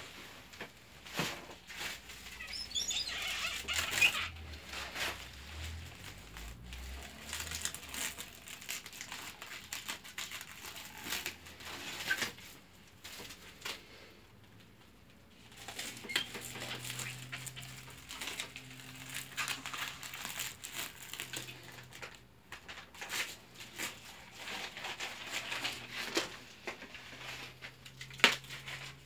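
Clear plastic cling film being pulled off its roll and wrapped around a log, with irregular crinkling and rustling of the plastic and a few sharp knocks.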